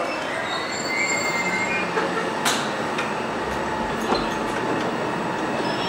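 Stockholm commuter train at a station platform: a steady noise of the train, with faint high squealing tones about a second in and a single sharp click about two and a half seconds in.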